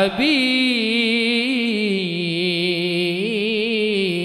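A man singing a solo Arabic devotional (sholawat) line into a microphone with no accompaniment: one long melismatic phrase with a wavering, ornamented pitch that steps down about halfway through.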